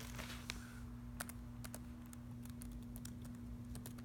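Typing on a computer keyboard: a run of faint, irregular key clicks.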